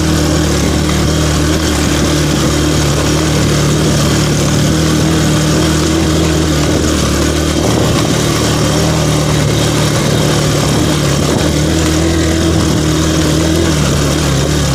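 Motorcycle engine running at a steady pitch while riding a rough dirt track, with heavy wind and ride noise over it.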